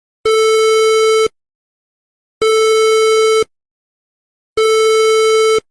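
Electronic alert tone: three identical harsh, buzzy beeps of about a second each, evenly spaced about two seconds apart, with silence between them.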